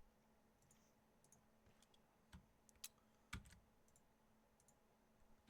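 Near-silent room tone with a few faint, widely spaced computer clicks, three clearer ones about half a second apart near the middle.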